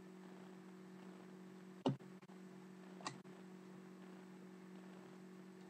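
Trading cards being handled and flicked against a stack: two sharp card snaps about a second apart, the first the louder, over a steady low hum.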